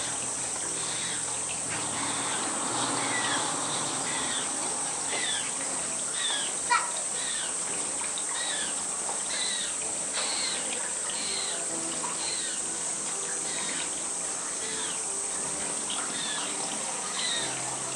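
Steady high-pitched drone of summer insects, most likely cicadas, with short falling chirps repeated throughout and one sharp click about seven seconds in.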